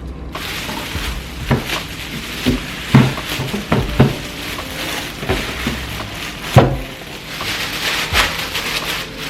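Plastic wrapping crinkling and rustling as it is pulled off a new humidifier, with several sharp knocks of the unit and box being handled, the loudest about three, four and six and a half seconds in.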